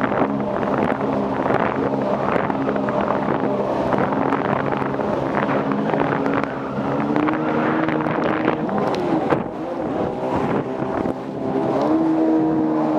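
Jet ski engine running under way, its pitch rising and falling with the throttle, over a steady rushing noise.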